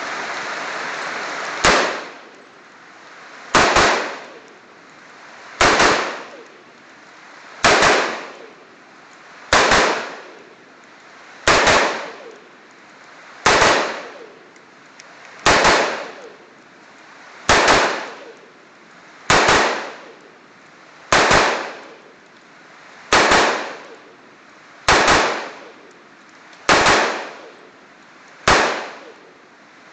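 Colt M4 carbine in 5.56 mm, fitted with a Troy Claymore muzzle brake, fired semi-automatically in slow, aimed single shots: fifteen sharp cracks about two seconds apart, each ringing off briefly. Steady rain hiss comes before the first shot.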